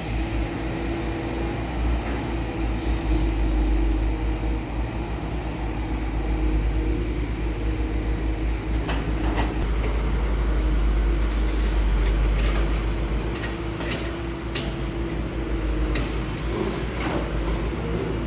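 Heavy diesel construction machinery running steadily with a deep rumble and an even engine drone, with short metallic clanks and knocks that become frequent in the second half.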